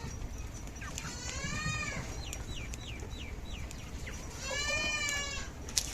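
Two drawn-out farm-animal calls, each about a second long, one about a second in and one near the end. Between them comes a run of four short falling chirps.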